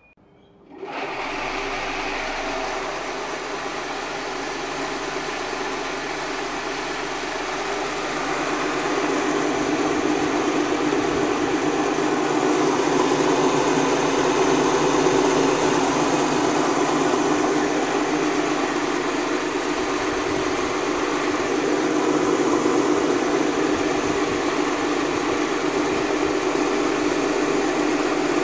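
Koei Sangyo 1000-type Sato-type circular vibrating sieve switched on about a second in, then running steadily with a mechanical hum from its vibrator drive. It grows somewhat louder after several seconds as it settles into full vibration.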